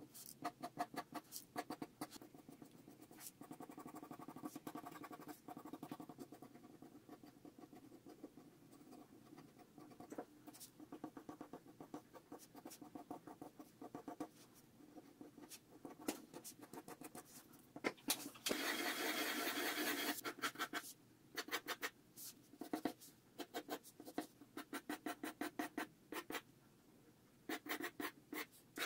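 Pencil lead scratching on paper in many quick short strokes, with a few seconds of denser, continuous scribbling about two-thirds of the way through.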